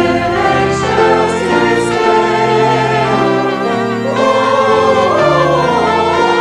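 Music: a choir singing with instrumental accompaniment, in long held chords.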